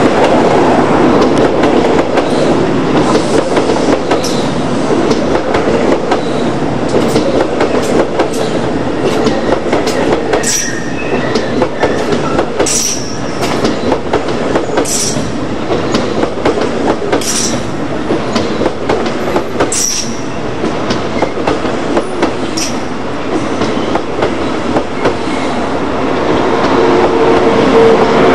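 ICE high-speed train rolling slowly past, with a continuous rumble of wheels on rail. Short high clicks or squeals come about every two seconds as the cars go by. A steady low hum comes in near the end as the rear power car passes.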